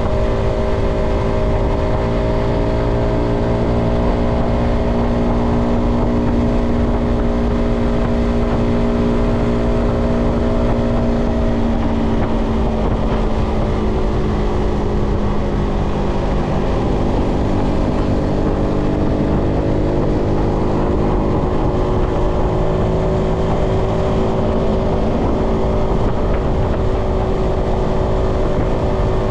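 Yamaha XSR125's single-cylinder four-stroke engine running at a steady cruise. Its note drops about twelve seconds in, then picks up again and holds a little lower.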